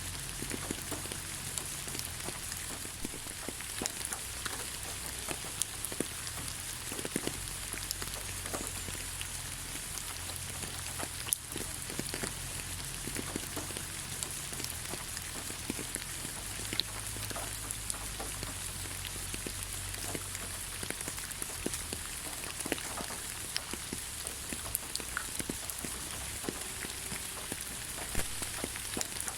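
Rain falling on the ground: a steady hiss with many separate drops ticking irregularly, over a low rumble.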